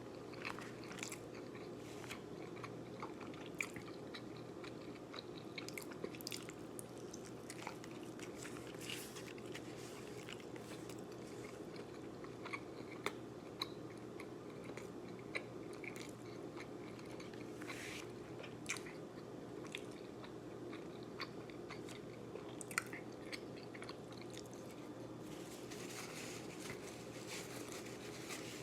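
A person eating a steak burrito: quiet bites and chewing with scattered small crunches and clicks, over a steady low hum.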